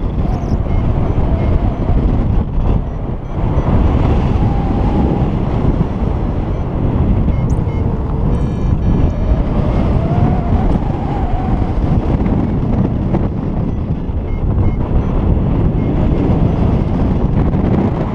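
Wind buffeting the camera's microphone in flight under a paraglider: a loud, steady rush of air.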